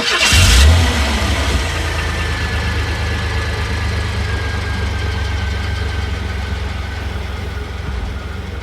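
An engine catching with a brief loud burst, then idling steadily with a low, pulsing rumble.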